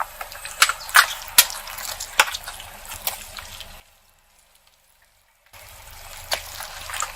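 Crackling and popping of something being squashed, with a string of sharp snaps. It comes in two bursts: the first stops short about four seconds in, and the second starts after a gap of nearly two seconds.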